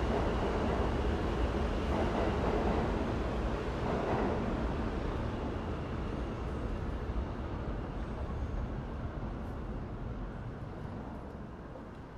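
New York City subway train rumbling in the station, loudest at first and then fading steadily as it pulls away.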